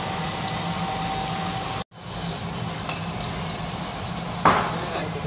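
Beef liver curry sizzling and bubbling in a metal pot while it is stirred with a metal spoon, with one louder scrape of the spoon against the pot about four and a half seconds in. The sound cuts out briefly just before two seconds in.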